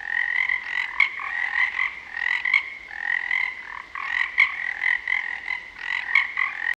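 A chorus of frogs croaking: many overlapping, rapidly pulsing calls, with a few sharp clicks among them.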